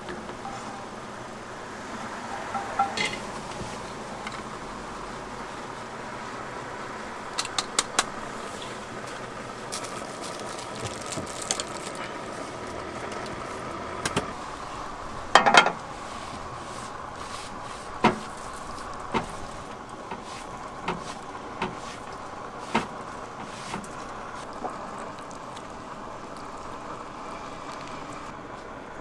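Scattered clinks and clatters of cooking utensils and dishes, the loudest a short cluster of knocks about halfway through, over a steady background hum.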